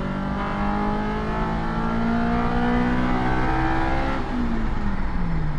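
Honda S2000's four-cylinder engine accelerating hard, heard inside the stripped-out cabin. Its note climbs steadily for about three seconds, then falls away about four seconds in as the throttle is lifted.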